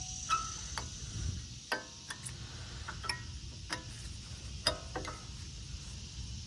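Light metallic clicks and taps, about ten at irregular intervals, some with a short ring, as a new brake pad is worked into the caliper bracket against its metal retaining clips.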